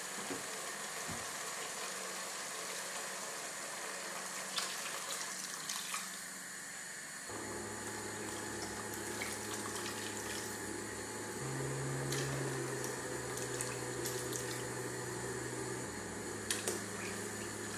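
Water poured in a steady stream from a plastic measuring jug into a pot of sautéed vegetables and tomatoes, topping up the soup base. About seven seconds in the sound takes on a deeper, fuller tone.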